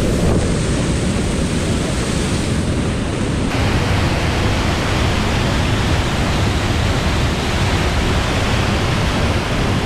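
Loud, steady rush of whitewater: a steep creek pouring over a small waterfall into a pool. About three and a half seconds in, the sound turns brighter and more hissing.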